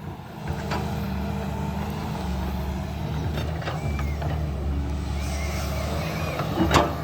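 Hydraulic excavator's diesel engine running steadily as a low rumble, rising in level about half a second in, with a few sharp knocks from the machine at work.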